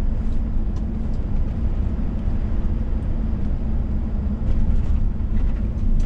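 Scania S500 truck cruising, heard from inside the cab: a steady low drone of engine and tyres with a faint constant hum over it.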